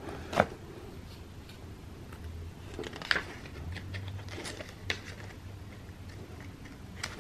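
Pages of a spiral-bound paper calendar rustling as they are turned by hand, with a few sharp paper flicks.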